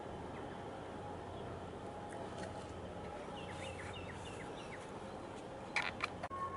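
Steady outdoor ambient noise with a low hum, and a bird chirping a quick series of about six short notes in the middle. A couple of sharp knocks near the end are the loudest sounds.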